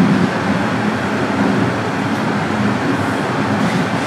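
Steady rumble and rail noise inside a Toronto Rocket subway car running along the line, with a constant low hum under it.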